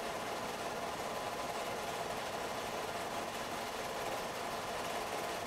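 Film projector running with a steady mechanical whir as the home-movie reel plays.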